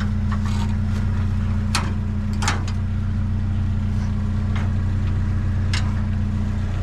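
A vehicle engine idling steadily, with a few short knocks or clicks, at about two, two and a half and six seconds in.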